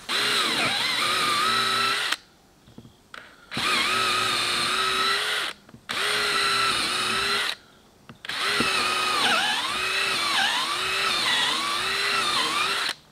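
Handheld power drill boring mounting holes for an anchor drum winch through a boat's fiberglass bow deck. It runs in four bursts of a couple of seconds each, the longest near the end, and its whine dips and recovers in pitch as the bit bites.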